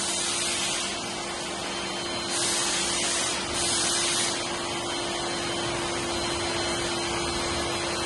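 Sippon BJC2021 wet-and-dry steam vacuum cleaner running steadily with a constant motor whine as its floor nozzle is pushed over concrete, with two louder hissing surges a couple of seconds in.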